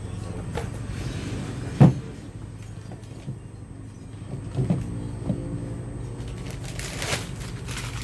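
Handling noises as RC tyre parts are picked up and set down: one sharp knock about two seconds in, two lighter knocks a few seconds later, then a brief rustle near the end, over a steady low hum.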